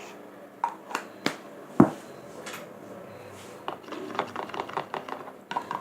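Clicks and taps of utensils and containers being handled while making slime, with a single loud knock about two seconds in and a quick run of clicks over the last two seconds.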